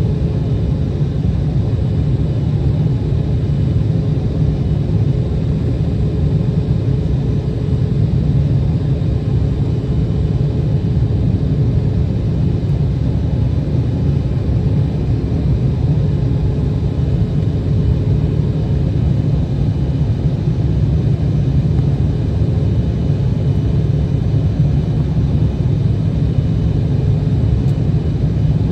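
Steady low rumble heard inside the cabin of an Embraer E175 jet airliner, from its GE CF34 turbofans and the airflow, with faint steady tones above the rumble.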